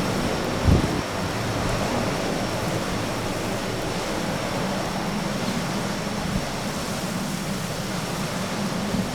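Strong gusty wind rushing over the microphone, with one low buffeting thump about a second in. Under it runs a steady drone of aircraft engines.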